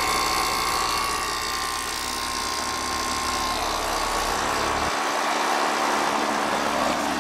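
Rheem RPMD heat pump outdoor unit running, a steady mechanical hum with a whine over fan noise. The lowest part of the hum drops out about five seconds in while the higher noise carries on.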